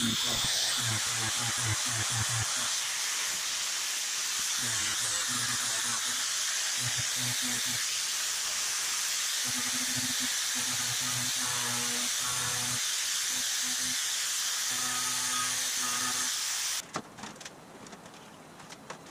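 Electric angle grinder with a sanding disc running over a welded aluminum seam, dressing down the weld bead: a steady high hiss with the motor's hum rising and falling as it bears on the metal. It cuts off suddenly near the end, leaving quieter shop sounds with a few light clicks.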